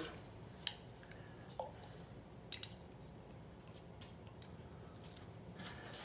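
Quiet kitchen room tone with a few faint clicks and light taps in the first half, small handling sounds of a bottle and measuring things on the counter.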